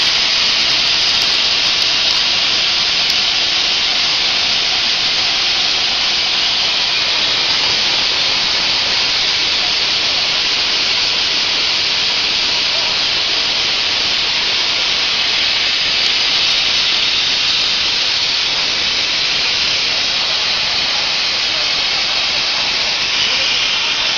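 Plasma cutting torch on a portable CNC cutting machine, cutting metal: a loud, steady, high hiss of the plasma arc and its compressed air.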